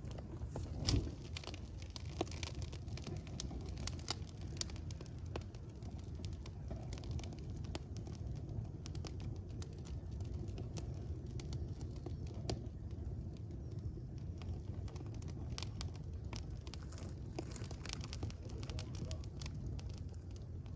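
Wood fire burning, a steady low rumble of flames with frequent irregular crackles and pops, a louder pop about a second in.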